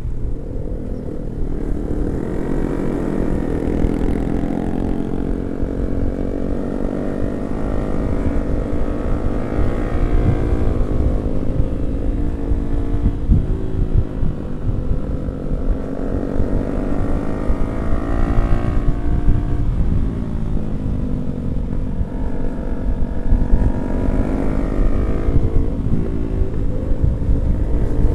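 Yamaha R15 V3's 155 cc single-cylinder engine under way, its pitch rising and falling about four times as the rider accelerates and backs off, with heavy wind rumble on the microphone.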